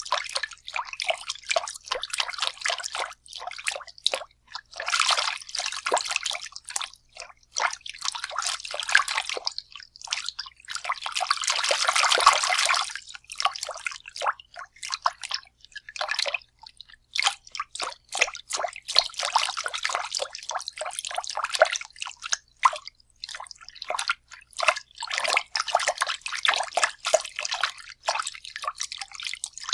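Water being stirred and splashed by hand in bouts: irregular sloshes and drips, a longer, heavier churning about a third of the way through, with short pauses between bouts.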